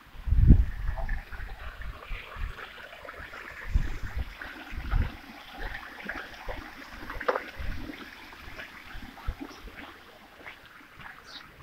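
Outdoor garden ambience: gusts of wind buffeting the microphone, strongest about half a second in and again a few seconds later, over a faint steady background of trickling water and small scattered ticks.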